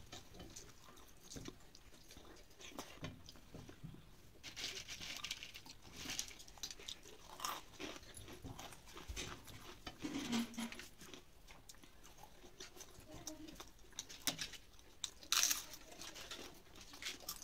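Crisp fried papad being bitten and chewed, a run of dry crackling crunches with the loudest near the end, between softer sounds of eating rice and dal by hand.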